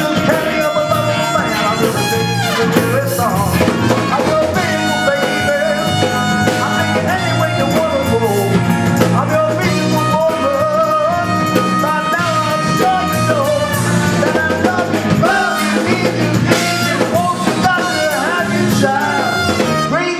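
Live rock band with a horn section playing an up-tempo blues-rock number, with held brass chords over drums, bass and guitar.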